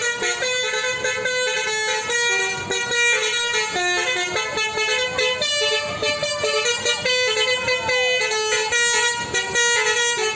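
Basuri multi-tone 'telolet' bus horn playing a tune: short held horn notes stepping quickly from pitch to pitch, several notes a second.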